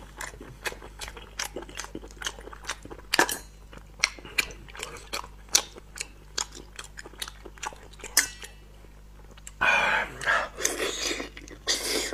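Close-miked eating of spicy snails: many sharp, wet clicks and smacks as fingers work the snail meat out of its shell and pull it apart. About ten seconds in, louder sucking and slurping sounds start as the meat goes into the mouth.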